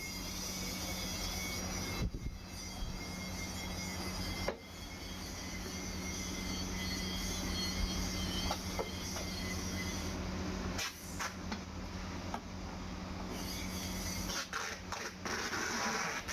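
A steady electrical hum under a continuous hiss, broken by a few short scraping or rubbing noises.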